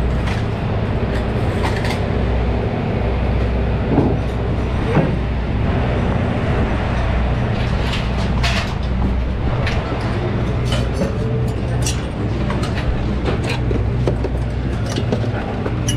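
A steady low machine hum with scattered metallic clinks and knocks of parts and tools being handled, more frequent in the second half.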